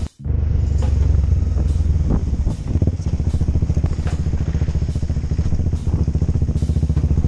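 Motorcycle engine running under way, a fast steady pulse with scattered sharp ticks, easing slightly about two and a half seconds in.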